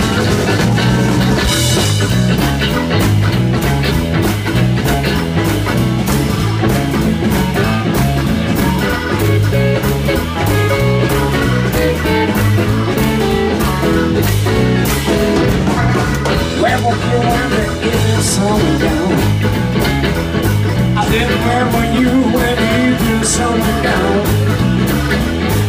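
Blues band playing live: electric guitars, bass guitar and drums over a steady, evenly repeating beat.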